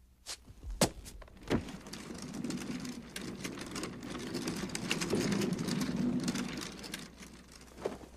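Two sharp thumps, then a bar crowd cheering and applauding, swelling in the middle and fading near the end, where another single knock sounds.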